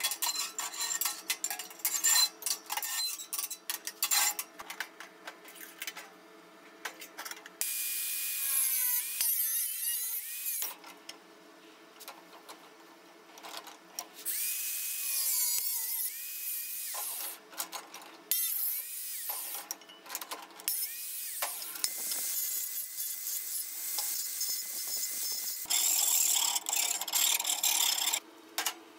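Metal being worked by hand in a vise: harsh rasping and scraping strokes of a file or saw on steel, in bursts with short pauses, with a wavering high squeal at times.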